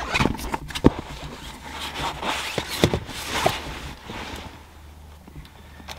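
Car stereo wiring harness wires being handled and sorted by hand: rustling with a few sharp clicks of plastic connectors and wire ends, over a low steady hum.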